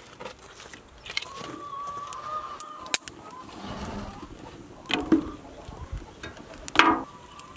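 Small fire of dry branches burning in a rusty metal barrel stove, crackling with a few sharp snaps, the loudest near the end.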